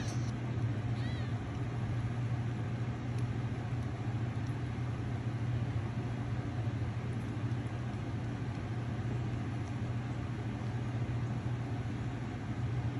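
Steady low hum throughout, with one brief high mew from a newborn kitten about a second in.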